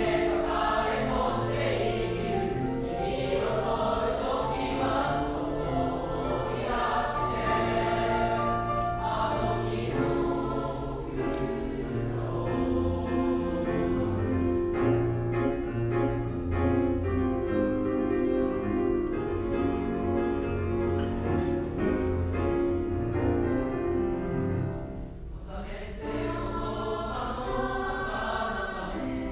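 A choir singing slow music in long held chords. It thins out briefly about 25 seconds in, then carries on.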